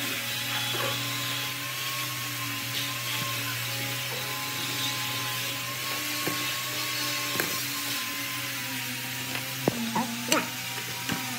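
Electric power tool motor running steadily with a whirring hum, its pitch sagging slightly near the end, with a few sharp clicks then.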